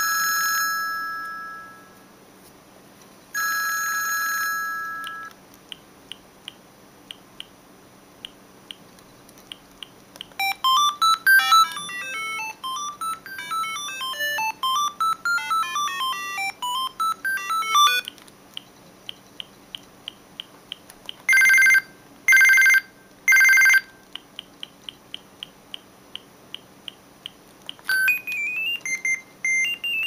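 Siemens C65 mobile phone playing a run of its stock ringtones and alert tones: two chimes that fade out, then a fast run of electronic notes sweeping up and down, three short beeps, and a short melody near the end, with faint ticking about twice a second in between.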